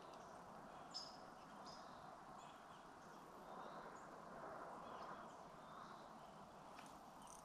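Near silence: faint outdoor background hiss with a few distant bird chirps, and a soft click about a second in.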